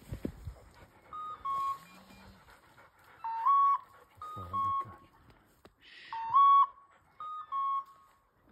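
A hunting dog's electronic beeper collar sounding two-note beeps about every second and a half, alternating a falling pair and a rising pair. The quick repeat is the point-mode signal of a setter holding point on a woodcock. A low thump comes at the start.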